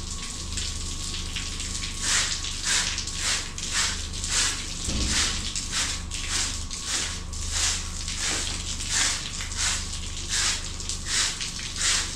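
Rhythmic rubbing or scrubbing strokes by hand, just under two a second, growing louder about two seconds in. A low steady hum runs underneath.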